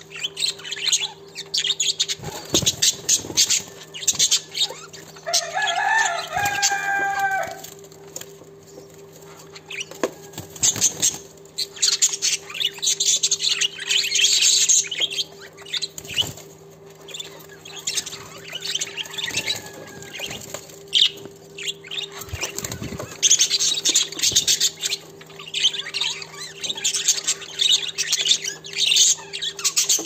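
Budgerigars chattering, a rapid scratchy warble with one clear pitched call about six seconds in, while the male flaps his wings to balance on the female's back during mating.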